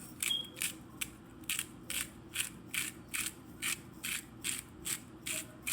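Hand-twisted sea salt grinder grinding salt crystals in a steady series of short crunching ratchet strokes, about three a second.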